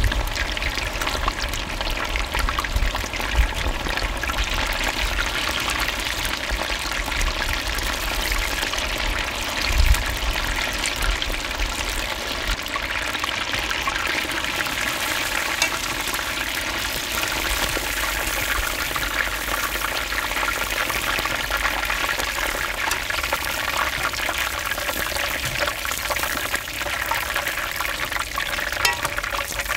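Battered chicken pieces deep-frying in a large pot of hot oil: a steady, dense sizzle and bubbling throughout. A low thump comes about ten seconds in.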